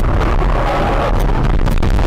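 Car running off the road into roadside bushes: a loud, continuous rumble of the car and brush against the body, with repeated sharp cracks of branches hitting and snapping from about a second in.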